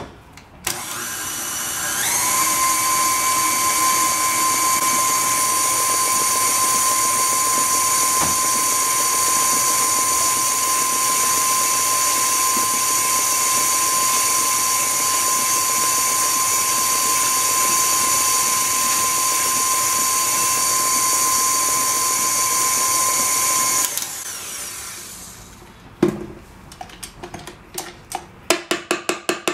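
KitchenAid Classic tilt-head stand mixer beating cheesecake batter with its flat beater. The motor starts, climbs in speed about two seconds in, and runs steadily with a high whine before winding down a few seconds from the end. It is followed by a run of clinks and knocks as the beater is handled in the steel bowl.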